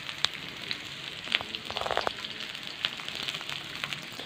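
Hot oil sizzling in a wok as onion, garlic, chillies and freshly added curry leaves sauté, with scattered sharp crackles and a short denser burst of crackling about two seconds in.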